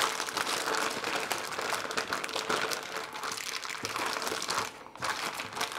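IKEA zip-lock plastic bag crinkling and crackling as hands knead chicken thighs in a thick marinade through it. It eases off near the end.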